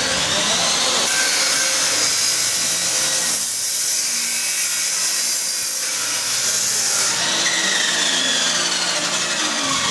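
A power cutting tool running under load, making a loud, steady, high-pitched cutting noise.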